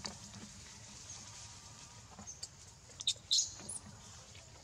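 Newborn macaque crying: a quick cluster of short, high-pitched squeaks about three seconds in.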